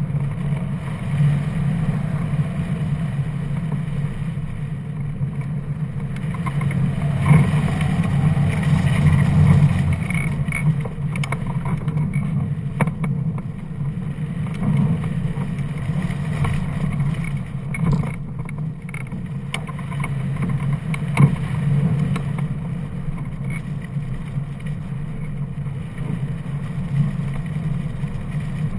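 Wind rushing over a glider-mounted camera microphone in hang glider flight: a steady low rumble of airflow, with a couple of brief knocks.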